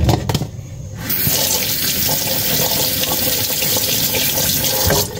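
Kitchen tap running into the sink in a steady stream, turned on about a second in and shut off near the end. A few light knocks come just before the water starts.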